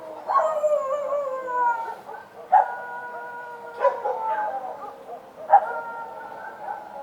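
Street dogs howling: four long howls in a row, each starting abruptly and sliding down in pitch.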